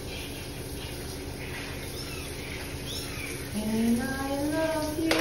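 Newborn kitten giving several thin, high-pitched mews. About three and a half seconds in, a woman starts humming a note that slides upward in pitch.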